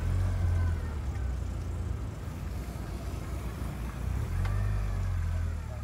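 Motorboat engine running steadily, heard from on board: a low hum that swells near the start and again about four seconds in.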